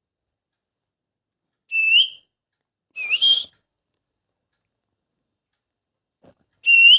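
Baby plum-headed parakeet giving three short, clear, upward-hooking calls: two close together about two and three seconds in, and one more near the end.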